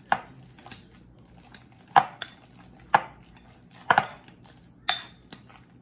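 Metal potato masher mashing ripe bananas in a glass mixing bowl, knocking sharply against the glass about once a second.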